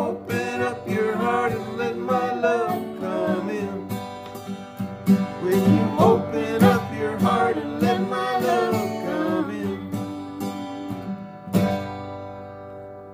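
Acoustic guitar and singing on the closing line of a country song. The song ends on a final strummed chord about three-quarters of the way through, which rings out and fades.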